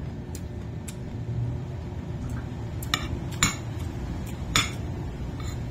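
Spoon and fork clinking and tapping against a plate several times during a meal, over a steady low background rumble.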